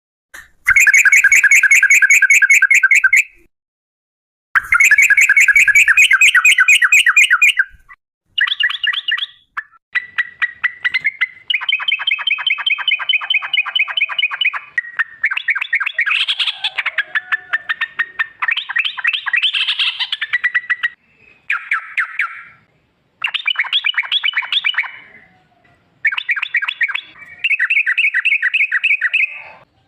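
Yellow-vented bulbul (trucukan) singing loud, rapid rolling trills in phrases of one to three seconds, with short breaks between them.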